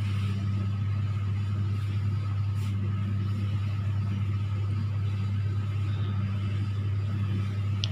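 Steady low machine hum that holds unchanged throughout, with a faint higher steady tone above it.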